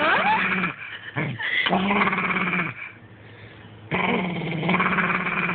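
Pet dog growling in long, drawn-out growls, three in a row with short pauses between, while a hand holds his lips up off his bared teeth. It is an objecting growl at being handled and teased.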